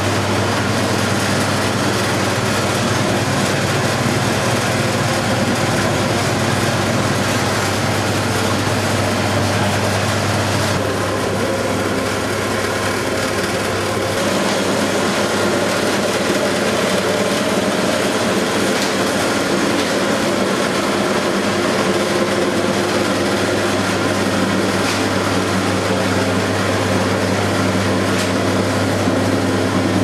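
Electric grape-processing machinery running steadily: a constant low hum with mechanical noise above it. The hum drops back about eleven seconds in and returns about ten seconds later.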